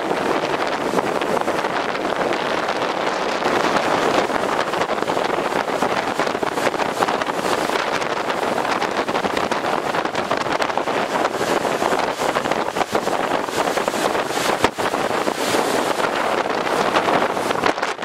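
Strong wind buffeting the microphone over the steady rush of large storm waves on Lake Superior breaking against a rocky shore.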